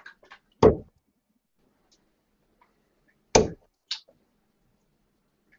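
Three sharp thuds of darts striking a dartboard: one about half a second in, then two about half a second apart near the end. Faint clicks come just before the first.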